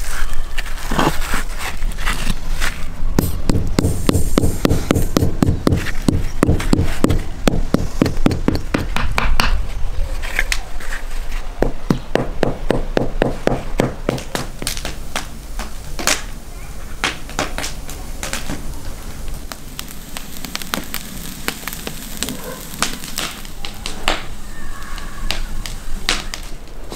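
A rubber mallet tapping granite paving stones down into wet mortar: runs of quick, dull knocks, several a second, with pauses between the runs.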